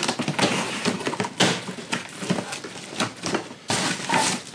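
A cardboard box being slit open along its top seam with a knife and its flaps pulled apart: cardboard scraping and tearing, with a few sharp knocks.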